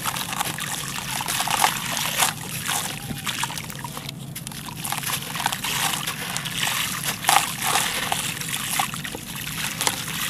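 Hands squeezing and crumbling a wet lump of gritty sandy cement paste: a continuous wet, crackly squelching with many small crunches as crumbs and watery paste drop into the basin. It eases off briefly about four seconds in.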